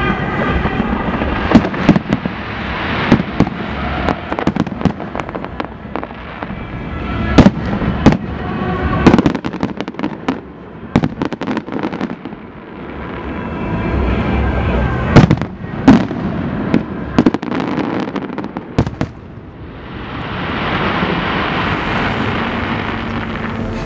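Fireworks going off: a run of sharp bangs from exploding shells, some in quick clusters, over a continuous crackle.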